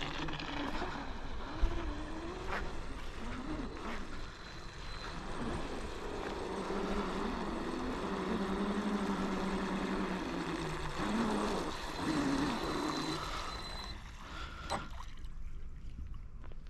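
The SSS 4074 brushless motor and propeller of a DYMotorShop New Zonda RC catamaran speedboat whine on a flat-out speed run. The pitch wavers up and down and holds steadiest for a few seconds near the middle.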